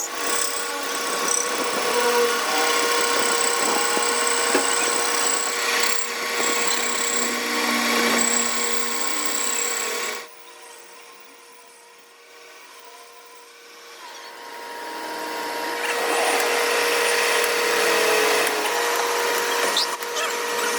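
A power tool running steadily with a constant whine. It cuts off about halfway, then winds back up over a couple of seconds and runs on.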